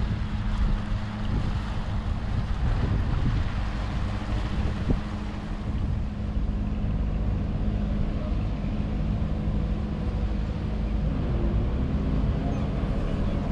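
Fishing netter's diesel engine running steadily at low speed as the boat motors past, a low drone, with wind on the microphone.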